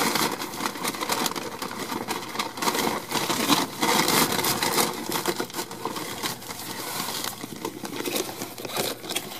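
A brown paper lunch sack crinkling and rustling as it is opened and rummaged through by hand, in a steady run of irregular crackles.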